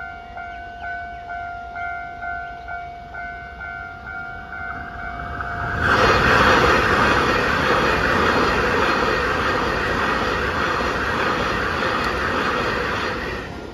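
Level-crossing warning bell dinging about twice a second. About six seconds in, a TRA EMU3000 electric multiple unit passes close by, a loud, even rush of wheel and body noise for about eight seconds that drowns out the bell, falling away near the end.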